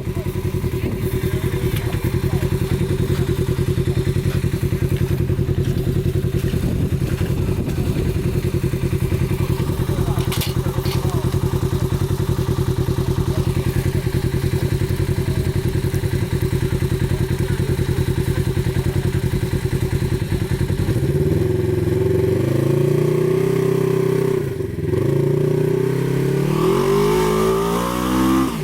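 Off-road vehicle engine running steadily at a constant speed for about twenty seconds, then revving, its pitch rising and falling several times before it drops away near the end.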